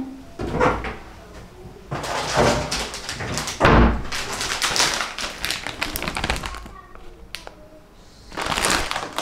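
Irregular tapping, knocking and rustling, with a heavy thud about four seconds in and another noisy burst near the end.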